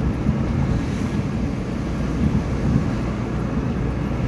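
Steady engine and road noise heard inside the cabin of a moving car.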